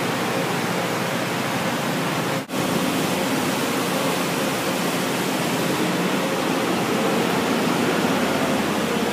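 Steady industrial machinery din in a large steel warehouse, a loud even rushing noise with a faint hum. It cuts out for an instant about two and a half seconds in.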